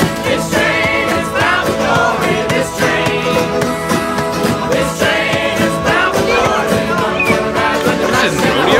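Background music: a song with a singing voice over steady instruments.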